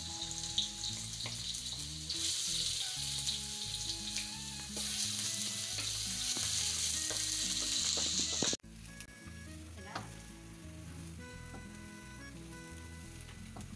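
Chopped ingredients sizzling in hot oil in a wok, stirred with a wooden spatula. The sizzle gets louder about two seconds in and again about five seconds in, cuts off abruptly about eight and a half seconds in, then carries on more quietly.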